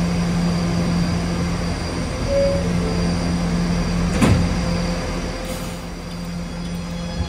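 Kawasaki R211S subway train standing at a platform with a steady low equipment hum. A short tone sounds about two seconds in, and a sharp knock about four seconds in as the doors shut.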